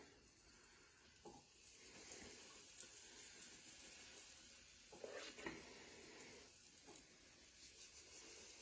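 Faint sizzling of pancake batter and butter on a hot griddle, with a couple of soft knocks, one about a second in and one around five seconds in.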